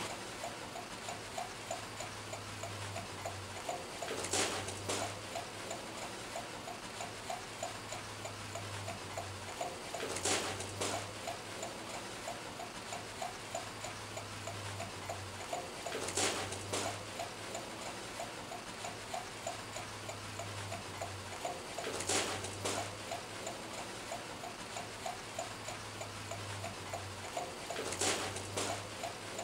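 Rapid, steady ticking over a low hum, with a short rush of hiss about every six seconds, repeating like a loop.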